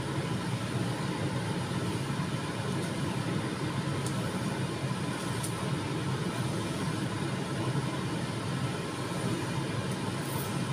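Steady low machine hum with a rushing hiss, holding the same level throughout, with a few faint light clicks.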